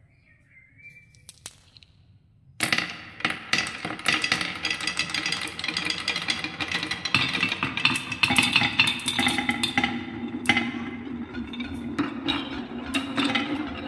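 Many marbles rolling down a wooden marble run, starting about two and a half seconds in: a steady rolling rumble with a dense run of clicks as they knock against the wooden rails, ramps and funnel bowls.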